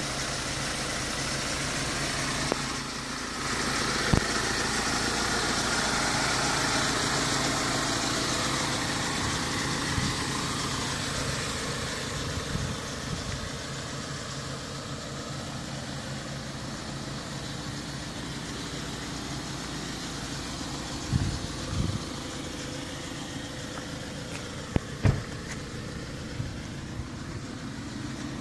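Ford Transit 155 bhp diesel van engine idling steadily, growing fainter about halfway through, with a few knocks and thumps in the last third.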